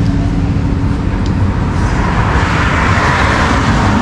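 Road traffic going by: a steady low rumble, with one passing vehicle's tyre and engine noise swelling up in the second half.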